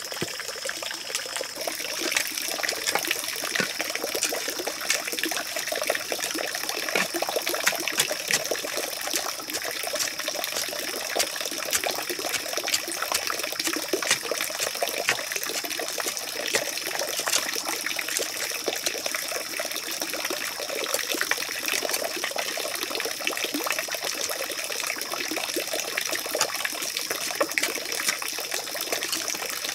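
Water trickling steadily, under a constant high-pitched hum, with scattered light knocks and scrapes of a bamboo pole digging into soil.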